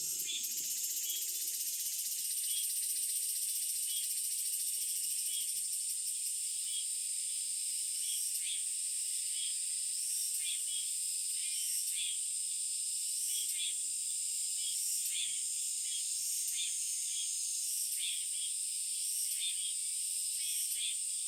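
Countryside nature chorus: a steady high-pitched insect drone, with short chirps repeating every second or so over it, from birds.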